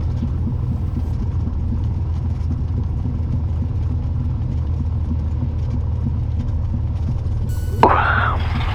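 A Cessna 182's six-cylinder piston engine at low power after landing, a steady low drone heard through the cockpit intercom. Near the end there is a sudden crack and then a brief noisy burst.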